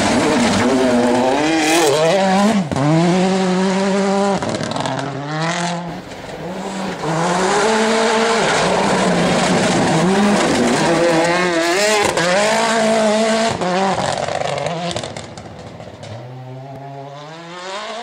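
Mini Countryman WRC rally car's 1.6-litre turbocharged four-cylinder engine at full throttle on a gravel stage: the engine note climbs through the revs and drops sharply at each gear change, again and again, with the hiss of tyres on loose gravel. It grows quieter about three-quarters of the way through, then climbs again near the end.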